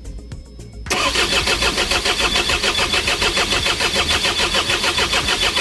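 Starter motor cranking an Isuzu 4HG1 four-cylinder diesel, starting about a second in with a steady, rhythmic beat as the engine turns over without catching. It is the no-start that is later traced to a defective supply pump module.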